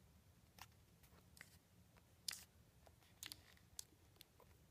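Faint, irregular clicks and taps of handling: fingers moving over the plastic case and steel bits of a screwdriver bit set, the loudest click a little past two seconds in.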